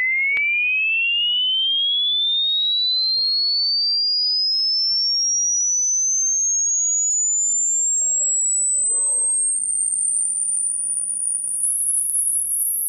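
A single pure test tone gliding steadily upward in pitch, from a high whistle to a very high, thin tone, climbing quickly at first and then more slowly. It is an age hearing-test sweep: the higher it climbs, the younger the ear must be to still hear it.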